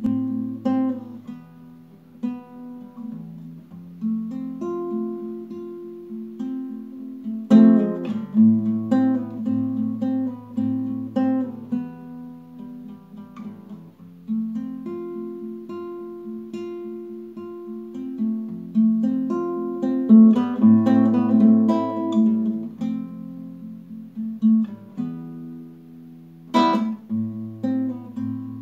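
Nylon-string classical guitar played solo: fingerpicked notes over a moving bass line, with a few louder strummed chords, the sharpest near the end.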